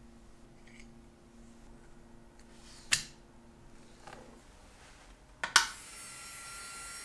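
A sharp click about three seconds in; then, near the end, a clack as the foot pedal is pressed and the Marathon micromotor handpiece starts spinning with a steady whine.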